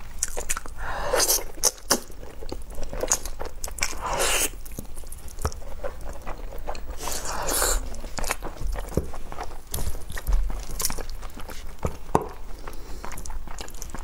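Close-miked wet chewing and lip-smacking from eating braised pig's trotters by hand, with many small sharp clicks and a few longer sucking sounds.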